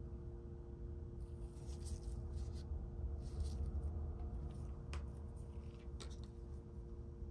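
Soft scratching and light handling noises from small parts and tools being worked on, with two sharp clicks about five and six seconds in, over a steady low hum.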